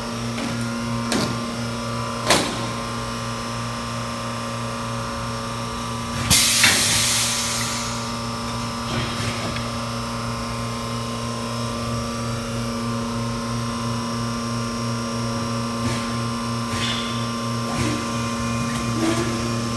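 Thermoforming machine running with a steady electrical hum. A loud hiss of released air comes about six seconds in and lasts a second or so. Sharp clicks come about one and two seconds in, with a few fainter ones near the end.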